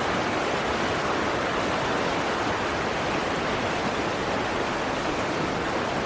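Steady, even rushing noise with no tone or rhythm, like falling water, holding at one level throughout.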